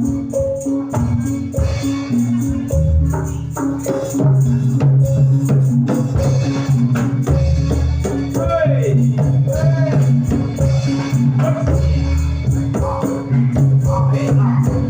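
Javanese jathilan music played loud over a sound system, with a steady percussive beat, sustained low notes and a singing voice that comes in about eight seconds in.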